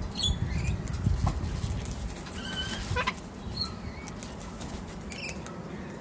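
Sulphur-crested cockatoo flapping its wings as it comes in to land, with low thumps in the first second or so. A few short, high bird chirps come now and then.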